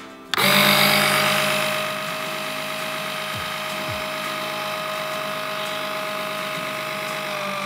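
A 12 V electric oil extractor pump switched on, its small motor starting abruptly and settling within a couple of seconds into a steady whine as it sucks engine oil up through the dipstick tube.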